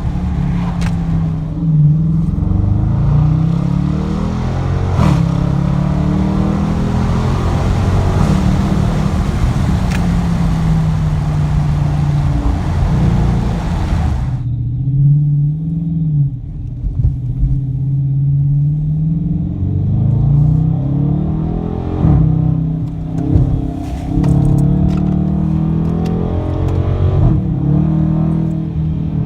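Dodge Challenger Hemi V8 exhaust running loud, its pitch climbing and dropping again and again as the engine revs up and eases off. A steady hiss over the engine cuts off suddenly about halfway through.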